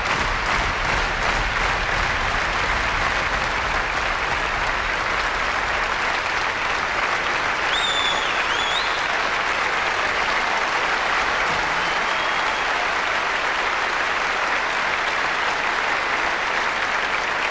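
A large concert-hall audience applauding enthusiastically, a steady, dense clapping that carries on without a break.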